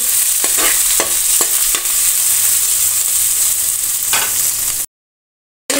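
Sliced onions, green chillies and cumin seeds sizzling in hot oil in a kadai, with a steel spoon clinking and scraping against the pan as they are stirred. The sound cuts off dead for nearly a second near the end.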